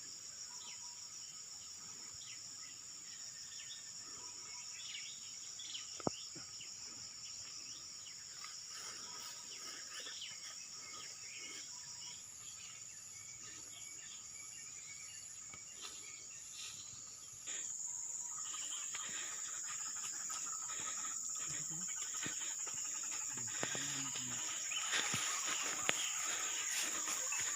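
Steady high-pitched insect chorus of crickets and cicadas. A louder buzz joins about two-thirds of the way through. A row of short, evenly spaced high pips comes just before it.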